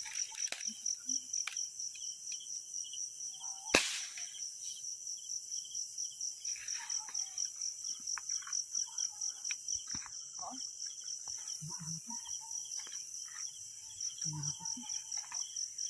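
A single sharp shot from a PCP air rifle about four seconds in, over the steady, rapidly pulsing chirp of night insects such as crickets.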